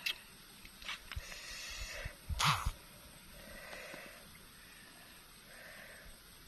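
Someone eating grilled snails: several short sucking slurps with sharp clicks, and one louder knock about two and a half seconds in.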